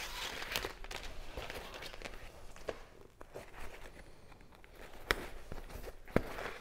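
Needle and thread being worked through a fabric kayak skin stretched over its frame: rustling and rasping of the fabric and the long thread being drawn through, with a few sharp clicks, the loudest two near the end.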